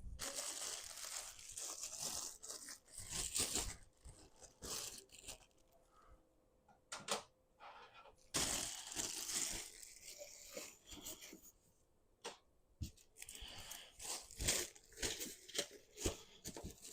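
Packaging being torn open and crinkled by hand as statue parts are unwrapped, in three spells of rustling and tearing with a few sharp clicks between them.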